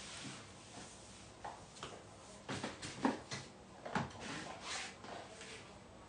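Handling noises: a few light knocks and clicks with some rustling, as a person leans over and reaches for something.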